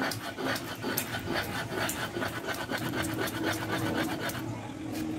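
Ginger being ground on a stone grinding slab with a cylindrical stone roller (shil-nora): quick, rhythmic back-and-forth rasping strokes of stone rolling over stone and wet ginger, thinning out about four seconds in.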